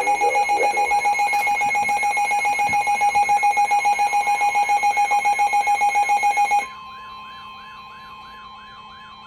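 An electronic alert alarm beeping rapidly on one high tone with strong overtones. About seven seconds in it cuts off, leaving a much fainter steady tone.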